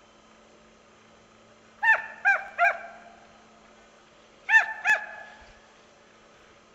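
Drever hound baying while driving game: three short yelps, then two more about two seconds later, each dropping in pitch.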